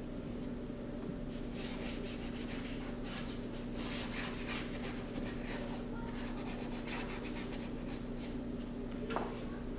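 Paintbrush bristles scratching and dabbing paint onto an upright board in many short, quick strokes that come in clusters, over a steady low hum.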